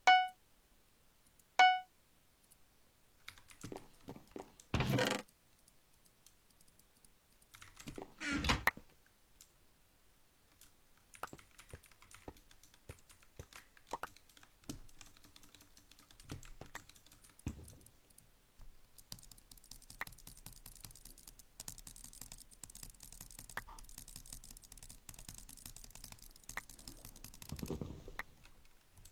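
Two short pitched beeps, then scattered clicks and knocks with a couple of louder thuds, and a steady hiss in the last third.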